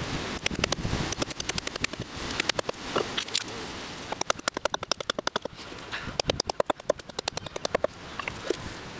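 Forest axe chopping into a sweet chestnut billet, carving away wood to form a mallet handle: rapid strings of sharp wooden knocks in bursts, with short pauses between runs.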